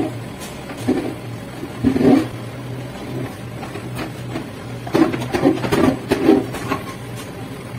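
Caterpillar mini excavator's diesel engine running steadily while it digs, with a cluster of louder knocks and clunks around two seconds in and a run of them from about five to six and a half seconds.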